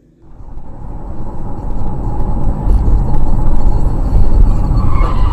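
Dashcam recording of a car driving: a steady low rumble of engine and tyre noise. It starts suddenly just after the start and grows louder over the first two seconds.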